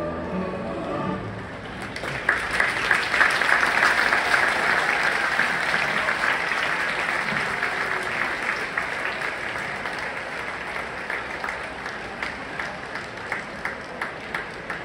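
Music ends in the first second or so, then a large stadium crowd applauds, loudest at first and thinning to scattered claps toward the end.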